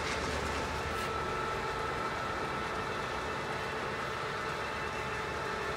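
Steady machinery hum with a few whining tones held level throughout, like a gear-driven machine running.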